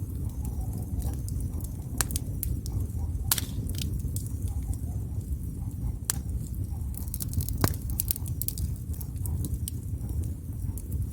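Wood fire burning with a steady low rumble of flame and frequent sharp crackles and pops, which bunch together in a quick run around the middle.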